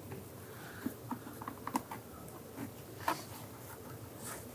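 Faint, irregular clicks and light taps of gloved hands handling the hard plastic B-pillar trim panel of a Jeep Grand Cherokee as it is worked loose.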